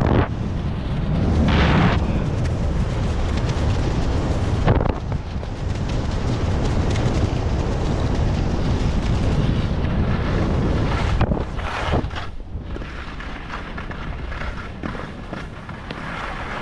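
Wind noise on a GoPro action camera's microphone during a fast ski descent, mixed with skis scraping over packed snow. A few sharp knocks around five and eleven seconds in, and quieter from about twelve seconds in.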